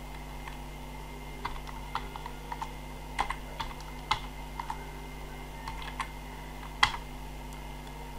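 Computer keyboard being typed on: irregular single keystrokes at an uneven pace, one louder key strike near the end, over a faint steady electrical hum.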